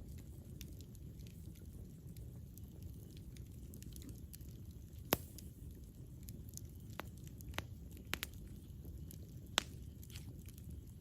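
Campfire burning: a steady low noise of the flames with sparse sharp pops and crackles from the wood, the loudest pop about five seconds in and a few more in the second half.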